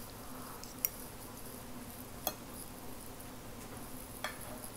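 Quiet eating sounds: three faint small clicks of a fork and mouth while eating, over a low steady hum.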